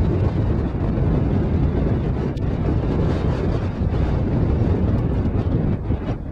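Wind buffeting the microphone, over a 70 hp Evinrude outboard motor running at speed.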